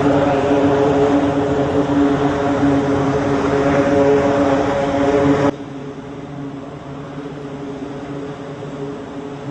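Jet aircraft engine running at high power, a loud steady noise with a whine in several steady tones. About five and a half seconds in it drops abruptly to a quieter, steady engine noise.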